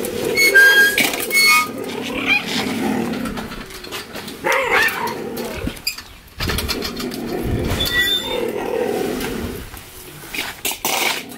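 Cheetahs calling as food is brought to their pens: short high-pitched chirps in the first couple of seconds and again near eight seconds, with lower, rougher growling between.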